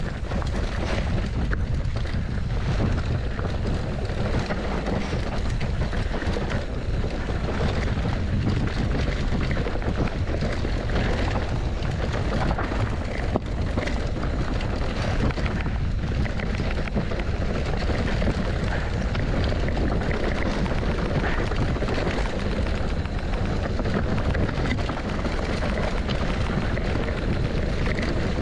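A mountain bike riding fast over a rough dirt trail: a steady rush of wind buffeting the microphone, with tyres and bike rattling and knocking continuously over stones and bumps.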